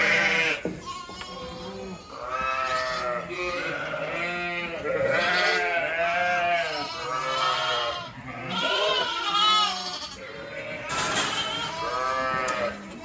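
A barn full of sheep and lambs bleating, with calls overlapping one after another without a break.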